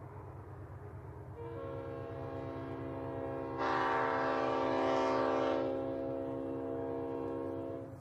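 Multi-chime train-style air horn sounding one long chord of several steady notes for about six seconds. It grows louder in the middle, then cuts off suddenly. A low steady rumble runs underneath.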